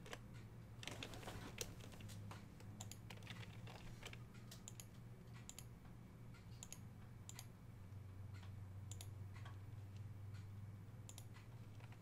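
Faint, scattered clicks of a computer keyboard and mouse, with a short flurry of clicks about a second in, over a low steady hum.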